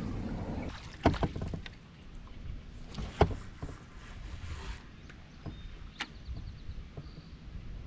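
Water sloshing around a fishing paddle board, with a low rumble of wind on the microphone. A few short sharp knocks and clicks come through about a second in, three seconds in and six seconds in, from rod and board handling during a cast.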